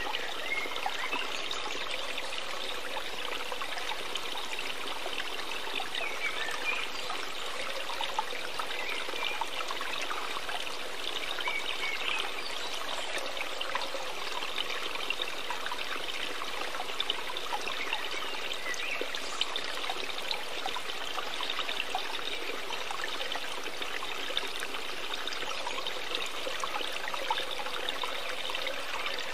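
Steady sound of flowing, trickling water, even and unbroken.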